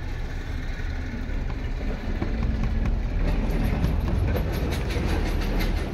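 Low engine rumble of a passing motor vehicle, swelling about two seconds in, with a run of light rapid ticking in the middle.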